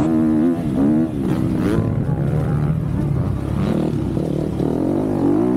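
MX2 motocross bike's engine heard from on board, its pitch climbing and dropping several times as the rider works the throttle and shifts through the corners.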